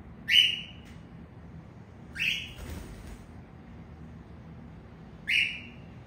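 Cockatiel giving three short, rising contact calls, a couple of seconds apart.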